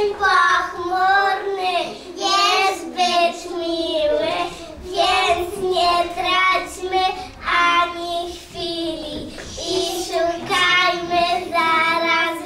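Young children singing a song, in phrases of held notes.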